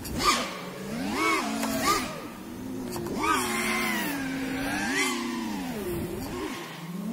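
A 5-inch FPV freestyle quadcopter's four brushless motors (F40 III 2306 2400 kV, three-blade props), heard from the pilot's position, whining in a pitch that swoops up and falls back with each throttle punch, about every second or two.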